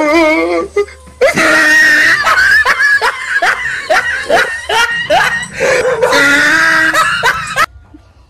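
Loud human laughter in a quick run of rising 'ha' sounds, cutting off abruptly near the end.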